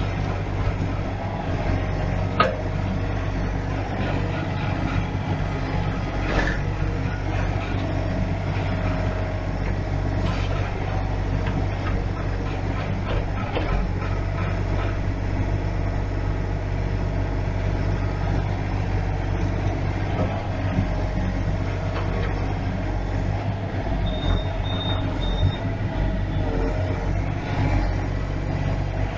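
A large engine running steadily with a constant low hum, with a few sharp knocks and clanks, and three short high beeps near the end.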